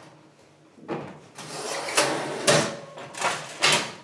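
Loaf pans scraping and knocking on an oven's baking tray as freshly baked loaves are tipped out of them. After a quiet first second comes a run of scrapes with several sharp knocks.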